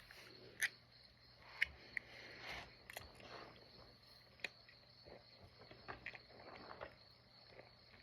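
Faint gulping as a can of pink Monster energy drink is chugged, with a few light clicks and a faint steady high-pitched tone underneath.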